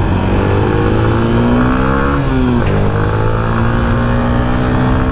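Motorcycle engine accelerating, its pitch rising, dropping suddenly a little over two seconds in at a gear change, then climbing again, over a steady low wind rumble.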